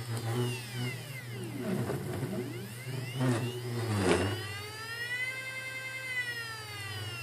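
Stepper motor of a DIY CNC machine singing: a pitched whine that falls and rises as the motor decelerates and accelerates through repeated moves, dipping low twice in the first half, holding high for a while and falling again near the end. A steady low hum runs underneath.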